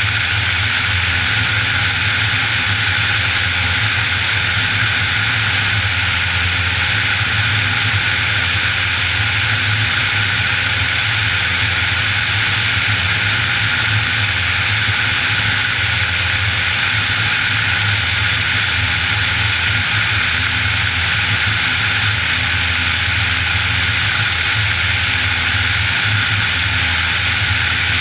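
Piper Warrior's Lycoming O-320 four-cylinder engine and propeller running steadily in flight, under a loud, even rush of air over the airframe.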